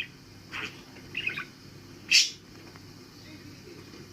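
Pet budgerigar giving three short chirps, the second a quick trill and the loudest about two seconds in.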